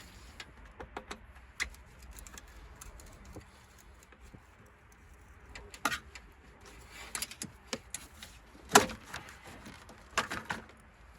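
Scattered clicks, rattles and knocks of parts being unclipped and handled while the air intake is taken off a Subaru engine, with one louder knock about nine seconds in.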